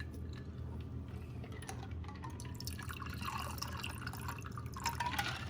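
A mixed drink being poured into a glass, liquid trickling and dripping over a low steady hum.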